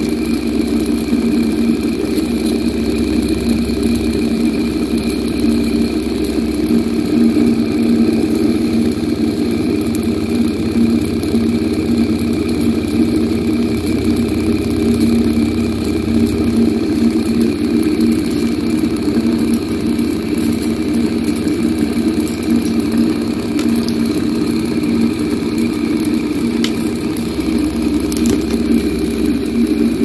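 Homemade Bedini circuit with a modified brushed fan motor running steadily, giving a continuous, even whirring hum.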